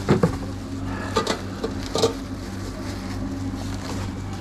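A steady low machine hum from the sandwich counter's equipment. Over it come a few short clicks and rustles near the start, about a second in and about two seconds in, as gloved hands handle the toppings.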